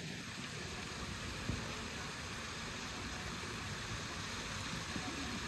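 Steady rushing of flowing water, with a few faint knocks.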